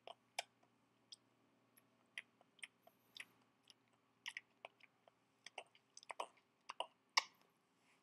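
A baby's small, irregular wet mouth clicks and smacks, about two a second, with a louder, sharper one about seven seconds in.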